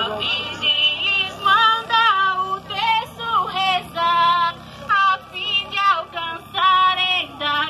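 A woman's voice singing a melody, with long held notes that waver.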